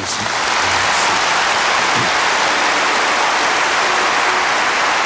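Large audience applauding: steady, dense clapping that swells up within the first second and holds.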